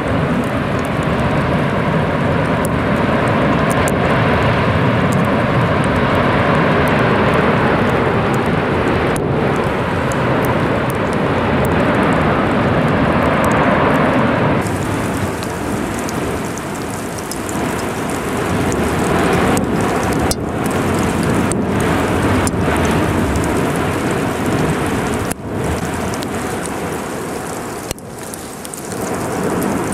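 Continuous rushing noise of the Cumbre Vieja volcano's lava fountains erupting. About halfway through it turns brighter and hissier, with scattered sharp cracks.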